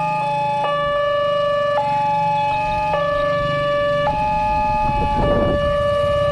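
Railway level-crossing warning alarm: an electronic signal switching back and forth between two notes about once a second. It sounds while the crossing's red lights are lit and the barrier is down, as the warning that a train is approaching.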